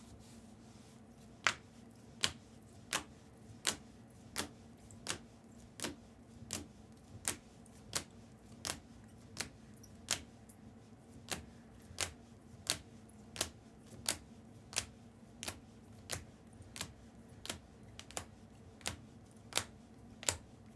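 A steady run of short sharp taps, about one every 0.7 s, from trading cards being set down one after another on a table during a recap. A faint steady hum lies underneath.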